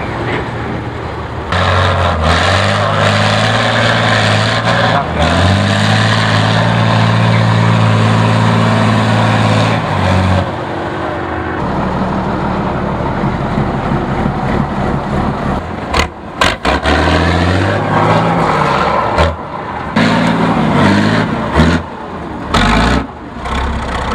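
Tatra 815 8x8 trial truck's diesel engine working hard under load as the truck climbs a steep dirt slope. Revs are held high for several seconds, then fall and rise again, with several abrupt breaks near the end.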